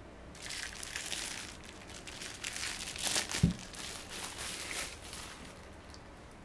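Crinkling of cling film being handled and peeled away, with a single soft thump about three and a half seconds in as the ball of scone dough is set down on the floured counter.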